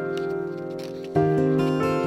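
Gentle background music on plucked strings: a chord rings and fades, and a new chord is struck about a second in.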